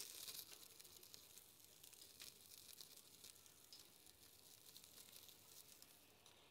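Mackerel fillets sizzling and crackling faintly, skin down on a wire rack over a gas flame as the skin chars; the sizzle is strongest at first and slowly dies down.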